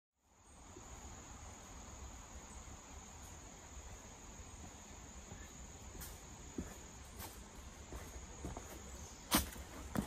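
Steady high insect drone in the woods over a low rumble. From about six seconds in, footsteps on rock come closer, with the loudest step near the end.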